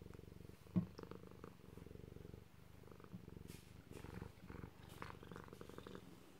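Himalayan cat purring faintly and steadily close to the microphone, with one brief sharp knock about a second in.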